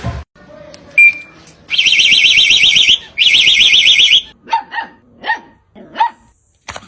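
An electronic alarm warbles rapidly up and down in two long bursts, then a dog barks four or five times.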